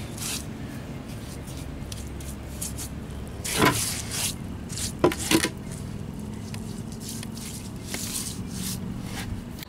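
Gloved hand rubbing and dabbing wet mud onto a fresh rapid-set cement patch on a concrete step, a run of soft wet scrubbing strokes, staining the patch. A couple of louder scrapes come about three and a half and five seconds in.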